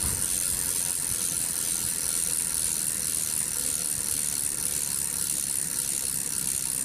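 Bicycle rear-wheel freewheel pawls clicking as the wheel spins freely: a steady, rapid, high-pitched ratcheting buzz.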